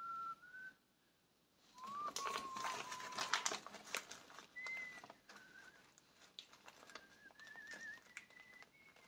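A person whistling a string of short, clear notes at different pitches, one of them warbling near the end. Scratching and scraping noises come with the whistling about two to four seconds in.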